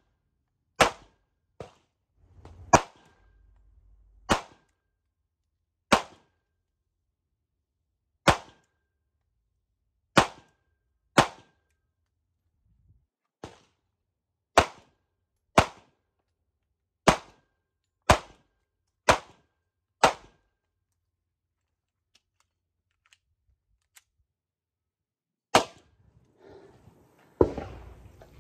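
Sig Sauer P365 XL 9mm pistol firing single shots, about sixteen sharp cracks spaced roughly one to two seconds apart, a few of them fainter.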